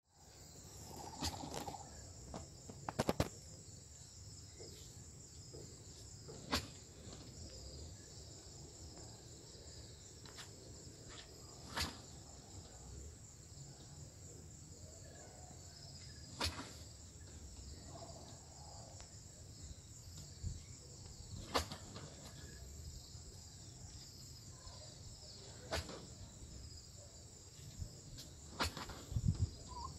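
Steady high-pitched insect chorus, with a sharp click or tap every few seconds; the clicks are the loudest sounds.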